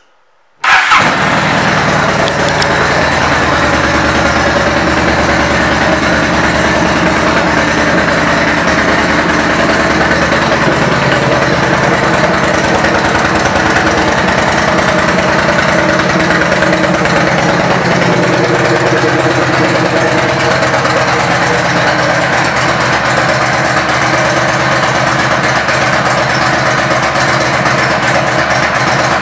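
A 2008 Yamaha V Star 1300's V-twin engine starting up less than a second in, then idling steadily.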